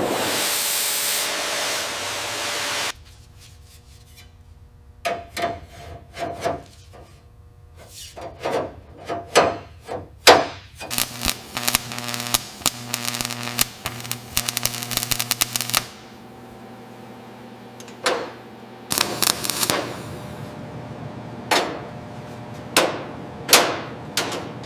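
Workshop hand-tool work: a loud burst of hissing noise for about three seconds, then a string of knocks and scrapes, a fast run of clicks in the middle, and a few more knocks near the end.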